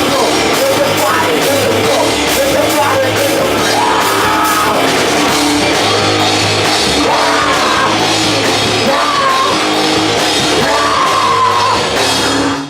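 Loud rock band playing live, with drums and shouted singing over dense heavy instrumentation; the music stops abruptly near the end.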